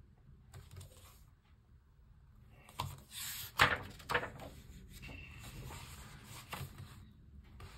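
Pages of a paper picture book being turned by hand: a rustle with a sharp flick of the page about three and a half seconds in, then softer rubbing of paper as the page is pressed flat.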